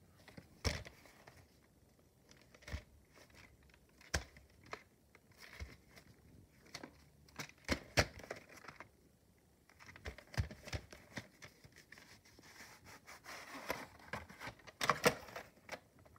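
Hands handling a VHS cassette and its sleeve: scattered clicks, knocks and rustling scrapes, the loudest about eight seconds in and again near the end.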